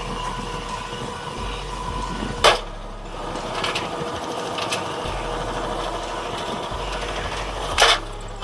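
Front-loading washing machine running with hard objects (a modem and a disk drive) tumbling in its drum: a steady motor hum with rattling and small knocks, and two loud bangs, about two and a half seconds in and again near the end, as the objects drop inside the drum.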